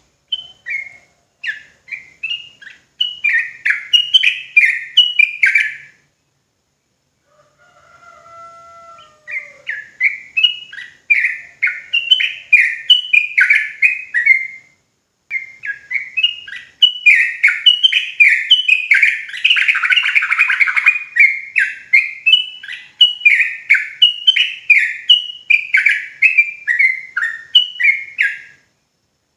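Yellow-vented bulbul (trucukan) singing its rapid chattering song: quick runs of short falling notes, two or three a second. They come in three long bouts, with pauses about six and fifteen seconds in, and a few lower sliding notes in the first pause.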